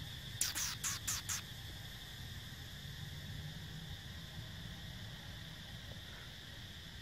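Steady drone of insects, with four short, sharp scratchy noises in quick succession about half a second to a second and a half in.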